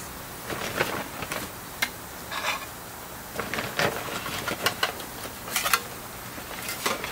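Scattered rustling and small sharp clicks of hands at work: handling a persimmon bonsai's pruned root ball on the bench and rummaging in a plastic bag of potting soil.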